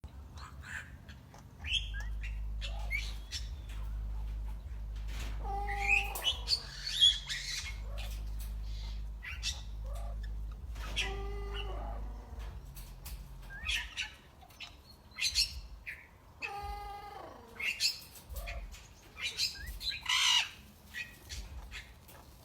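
Hawk-headed parrots giving scattered squawks and chirps, short sharp calls with a few longer, lower squawks among them. A steady low hum sits underneath for the first half.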